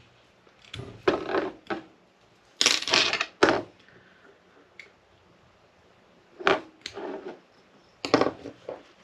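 Small tools and jig-tying materials handled on a workbench: scattered clicks, taps and rattles in four short bursts, the loudest a little under halfway through.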